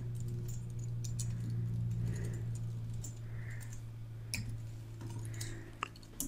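Computer keyboard being typed in short, irregular runs of key clicks, over a steady low hum.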